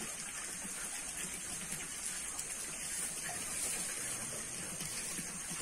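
Steady hiss of water, even and unbroken, with no distinct splashes or knocks standing out.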